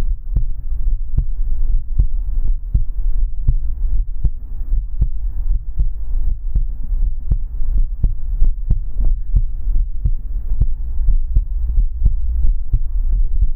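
Close-miked heartbeat: a low throbbing over a constant low hum, crossed by a fast, uneven run of sharp clicks.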